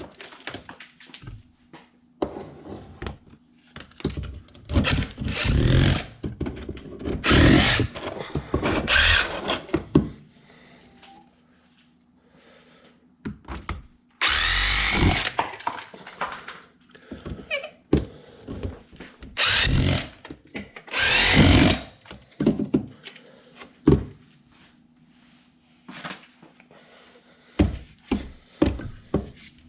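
Rotary hammer chiselling packed ice out of a refrigerator's ice maker, run in short bursts of a second or two, with scattered knocks in between.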